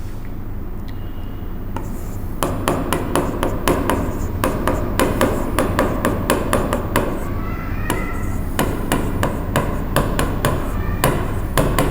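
A long run of sharp taps or knocks, about three to four a second, starting about two seconds in, over a steady low hum.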